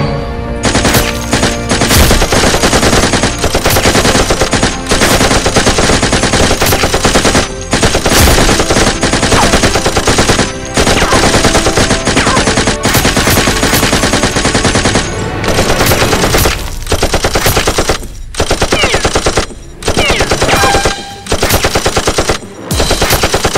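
Rapid automatic gunfire, fired at the flying monsters from the soldiers' blasters. It runs unbroken for most of the stretch, then comes in bursts with short breaks between them in the last several seconds.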